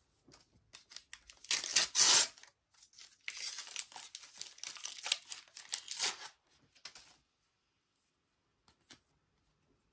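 A trading-card booster pack's wrapper being torn open: a loud rip about one and a half seconds in, followed by several seconds of the wrapper crinkling as the cards are pulled out.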